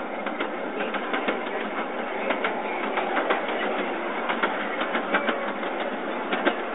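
Small ride-on miniature train running along its track: a steady running noise with frequent, irregular clicks of the wheels on the rails.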